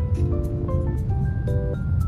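Background music: a light melody of short held notes and chords over a steady bass, with a regular tick about three times a second.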